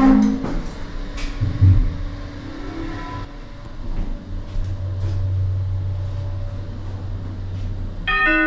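Traction lift car running up one floor. The closing doors knock shut at the start, with a second knock under two seconds in. The car then runs with a steady low hum, and an electronic arrival chime starts near the end.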